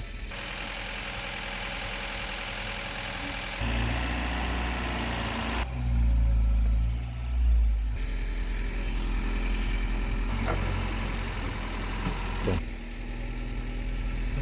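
Camper van engine running at low speed while the van is slowly manoeuvred, getting louder a few seconds in and loudest for a couple of seconds in the middle before settling back to a steady run.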